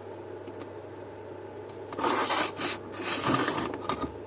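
Hard objects rubbing and scraping against a surface in several short bursts from about two seconds in, with a few light clicks, over a low steady hum: a phone and a small electric heater being handled and set in place.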